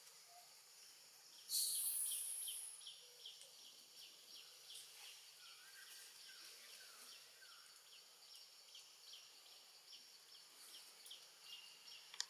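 Outdoor insect and bird chirping in the trees: a brief high hiss about a second and a half in, then a steady run of short high chirps at about three a second, with a few faint falling whistles in the middle.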